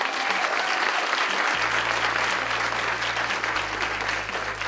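Audience applauding, the clapping steady and easing slightly near the end.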